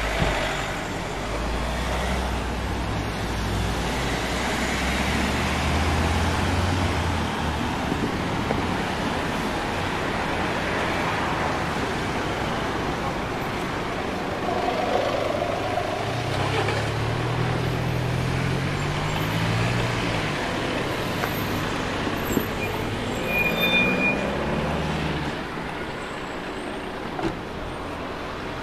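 City street traffic: a steady wash of road noise with a low engine rumble for the first several seconds, then vehicles pulling away with engine pitch rising, once about halfway through and again later.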